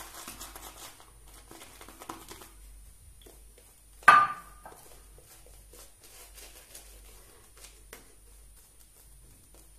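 Shaving brush scrubbing lather onto the face and neck to build up for the third pass: quick scratchy bristle strokes, densest for the first couple of seconds, then sparser. About four seconds in, one sharp knock with a short ring is the loudest sound.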